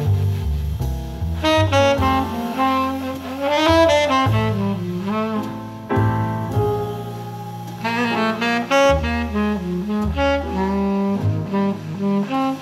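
Moody jazz tenor saxophone melody with gliding, bending notes over a walking double bass line, played back through homemade loudspeakers in a room.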